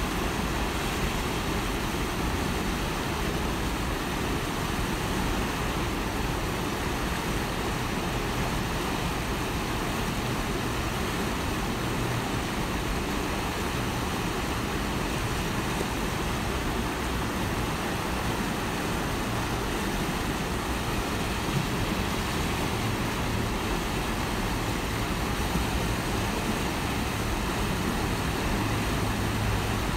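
Steady rush of white-water river rapids, with wind buffeting the microphone in low rumbling gusts.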